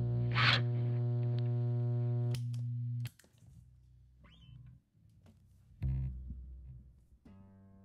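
Bass guitar played through a GigFx SubWah filter pedal with distortion. A loud held low note, with a brief bright high burst about half a second in, cuts off about three seconds in. Quieter plucked notes follow, and another low note sounds near the end.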